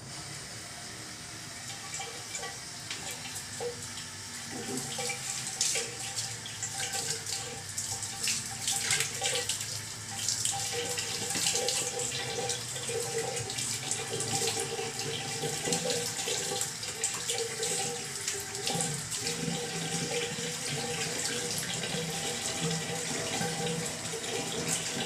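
Water running from a shower and splashing steadily, getting louder about four or five seconds in, with a wavering hum underneath.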